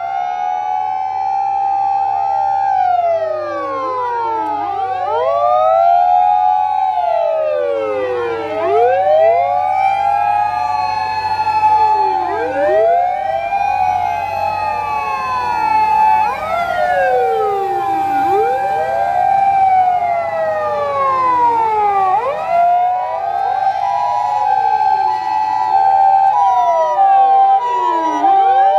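Several Japanese emergency vehicles passing in convoy, their electronic sirens wailing at once, many rising and falling sweeps overlapping over a low engine rumble. Near the end an ambulance's alternating two-tone hi-lo siren joins in.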